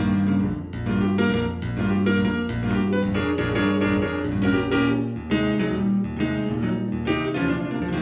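Instrumental music: piano chords struck in a steady rhythm over a moving bass line, the intro of an up-tempo rock-and-roll song.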